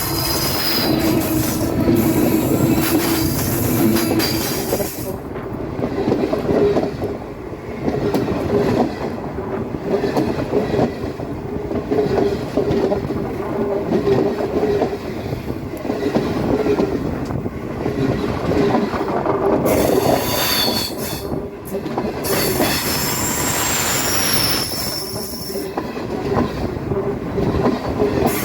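Train running on rails with a steady rumble of wheels on track, and high-pitched wheel squeal at the start, again about twenty seconds in, and near the end.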